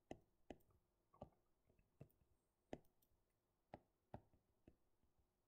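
Faint, separate clicks of a stylus tip tapping down on a tablet screen as lines are drawn, about nine at uneven intervals, with near silence between.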